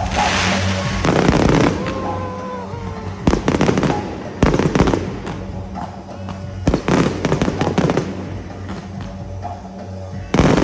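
Aerial fireworks going off in a series of loud bangs with crackling between them, over music playing in the background.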